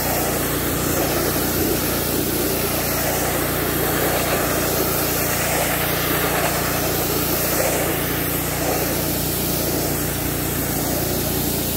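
Pressure washer running steadily, its water jet hissing against a plastic truck grille and the concrete under it. The spray swells and fades every couple of seconds as the wand sweeps along the grille.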